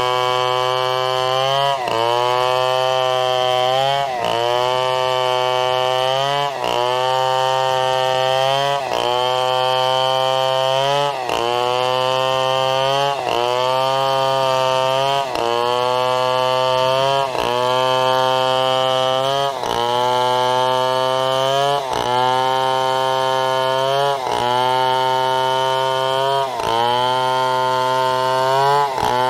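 Two-stroke chainsaw running at high revs while ripping a fallen coconut trunk into lumber. Its engine note dips sharply and climbs back about every two seconds as the saw is worked through the cut.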